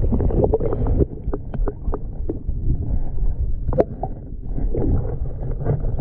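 Underwater sound of a river pool: a muffled low rumble of moving water, with scattered sharp clicks and ticks, one louder than the rest near the middle.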